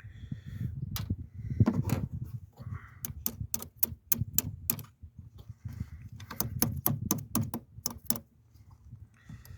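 Metal clinks and rattles of hand tools and bolts working a car battery terminal clamp, in quick clusters of sharp clicks over dull knocks and handling thumps.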